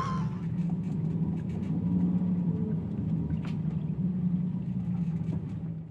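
Strong wind heard from inside a sailboat's cabin: a steady low drone over a rumble that rises and falls gently.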